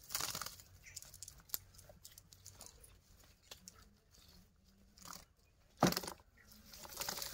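Rustling and crackling of a nylon cast net with scattered small clicks as fish are worked free of it by hand, and one louder thump about six seconds in.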